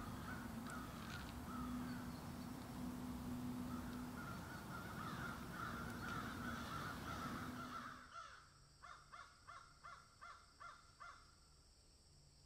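Quiet outdoor ambience with faint bird calls. About eight seconds in it drops to a run of about ten short, evenly spaced calls, some three a second.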